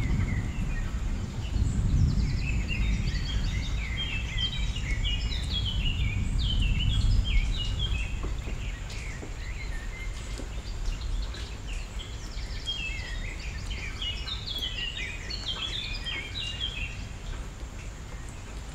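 Bird-like chirping: quick runs of short, high notes, each falling in pitch, in two spells, over a low rumble that fades after the first few seconds.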